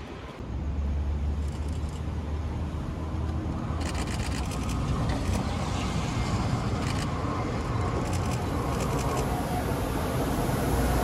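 Dalian-built diesel locomotives approaching while hauling a dead electric train: a steady low engine rumble that grows louder toward the end, with a few light clicks midway.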